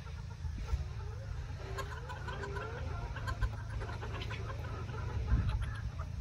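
Silkie chickens clucking, with several short rising calls in the first three seconds and some higher short chirps, over a steady low rumble.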